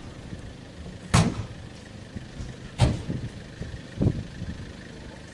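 Two sharp bangs about a second and a half apart, then a duller thud about a second later, over a low steady rumble.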